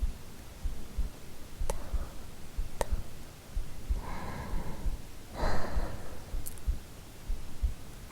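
A real human heartbeat, recorded close up, thumping steadily and low, with a woman's slow breaths near the microphone about four and five and a half seconds in, and a few small mouth clicks.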